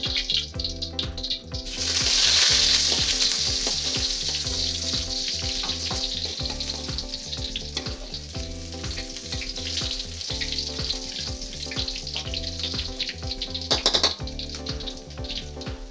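Chopped garlic dropped into hot oil in a wok, sizzling loudly about two seconds in and then frying steadily, slowly fading as it is stirred with a spatula. A brief louder burst comes near the end.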